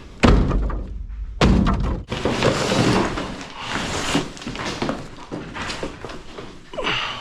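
Two heavy thuds of demolition debris being dropped, a little over a second apart, followed by scraping and rattling as the pieces shift and settle.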